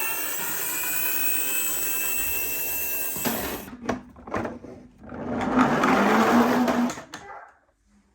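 Toy miniature ambulance running: a steady mechanical whir for about three seconds, a few light knocks, then a louder, rougher whir for about two seconds.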